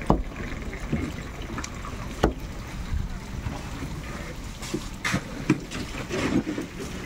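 Scissors snipping through a fish: about four sharp snips spread over several seconds, over a steady low background rumble.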